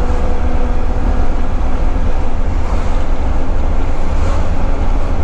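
Volvo FH12 480 truck's diesel engine running steadily under way, a low steady drone mixed with road and wind noise as heard inside the cab.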